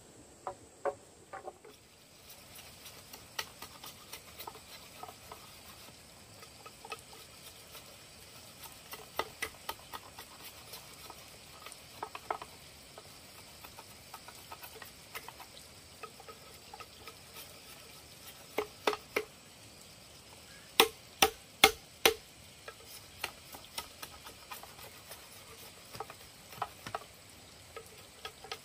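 Machete working an upright green bamboo culm: scattered light taps and scrapes of the blade on the bamboo, with a quick run of four sharp chopping strikes about three-quarters of the way through.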